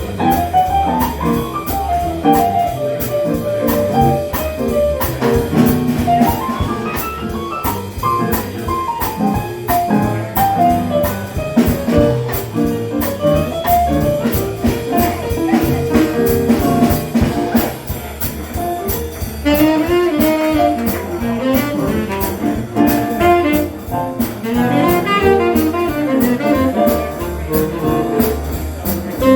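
Swing jazz played live: a tenor saxophone takes a melodic solo over piano, bass and drums.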